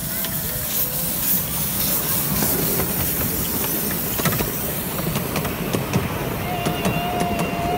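Miniature steam locomotive passing close by with its train of carriages: steam hissing from around the cylinders, with the rumble of the train and irregular clicks and knocks of the wheels on the track.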